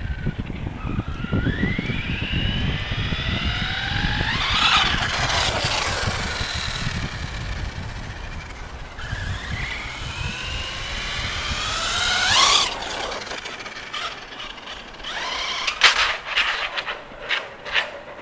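An RC truck's 3000kV brushless electric motor whines as it accelerates, its pitch rising in two runs that are loudest about five seconds in and again about twelve seconds in. Under it runs the rumble of the street tires on pavement. A burst of sharp clicks comes near the end.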